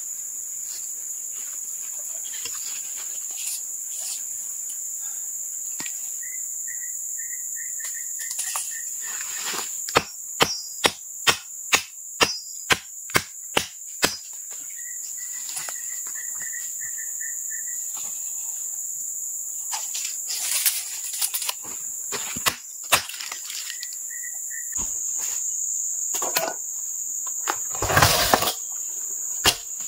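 Steady high-pitched insect buzz. A quick run of about ten sharp knocks comes a third of the way in, and there is a single loud thump near the end.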